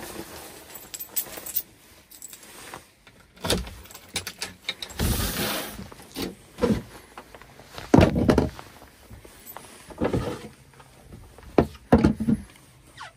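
Irregular knocks, clicks and clatter, with a rush of noise about five seconds in and a louder thump about eight seconds in.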